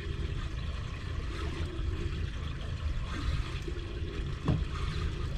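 Steady wind rumbling on the microphone with water sloshing against a boat hull, and a single brief thump about four and a half seconds in.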